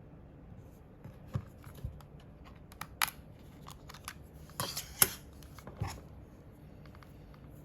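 Irregular sharp clicks and short scraping handling noises, about half a dozen distinct ones, the loudest about five seconds in.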